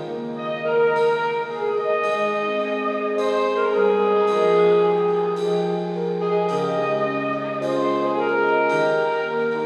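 Slow instrumental processional music, orchestral with brass: sustained chords that change about once a second.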